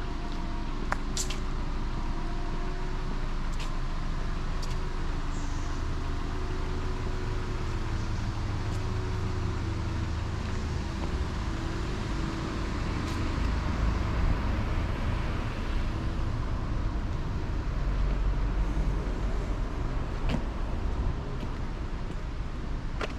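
Outdoor ambience: a steady low rumble with a few faint clicks, swelling in loudness twice in the second half.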